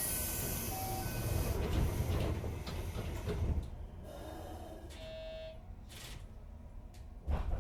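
Pneumatic sliding doors of a JR West 205-series electric train working at a station: a loud burst of air hiss, short electronic door-chime tones, and a knock near the end.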